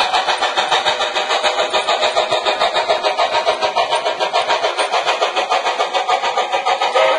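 Model passenger train coaches rolling past, their wheels clattering on the track in a fast, even rhythm of about six beats a second.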